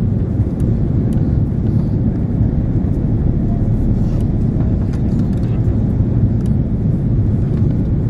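Steady low rumble of engine and airflow noise inside the cabin of an Airbus A330-300 airliner on its descent.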